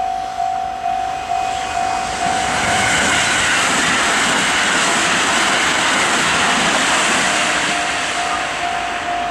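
Japanese level-crossing warning alarm ringing a steady clanging ding, about two and a half strokes a second. From about two and a half seconds in, an electric train passes through the crossing. Its loud rushing run drowns the alarm until the alarm comes back clear near the end.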